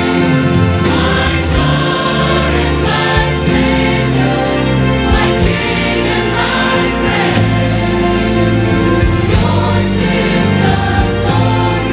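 Church choir singing a Christmas cantata, with a low, sustained instrumental accompaniment underneath.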